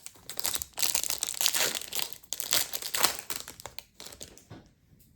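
Plastic wrapper of a trading card pack being torn open and crinkled in the hands, a dense crackle for about three and a half seconds that thins to a few scattered rustles near the end.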